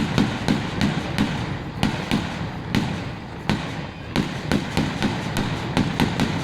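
Aerial fireworks bursting in a rapid volley: sharp bangs about three a second, each trailing a short echo.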